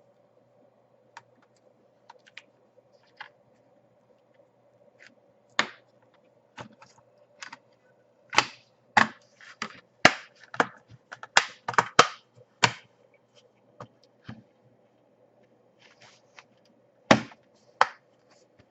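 Sharp plastic clicks and knocks from a laptop's casing and parts being handled during reassembly. A quick cluster of about a dozen comes midway and one more near the end, over a faint steady hum.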